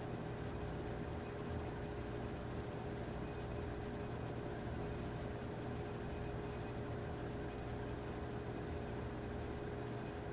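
Steady low hum and hiss with one faint steady tone throughout, and no distinct sounds: background room or recording noise.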